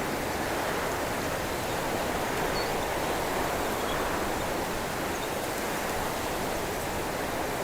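Wind blowing steadily through the branches of a cypress bush, an even rushing hiss with no distinct gusts.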